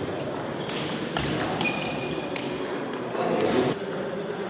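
Table tennis rally: the ball clicks sharply off the rackets and table several times, mostly in the first two seconds, one hit leaving a short ringing ping. Murmur of voices from the hall underneath.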